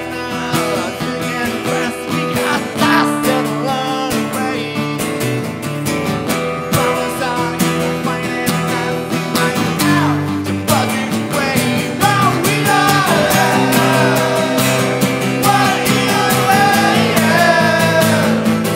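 Two acoustic guitars strummed under a male lead vocal, with a group of voices singing along; the song gets louder about twelve seconds in.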